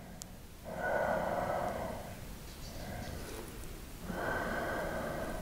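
A man breathing slowly and audibly while holding a deep yoga stretch. One long breath comes about a second in and another at about four seconds, with a softer one between them.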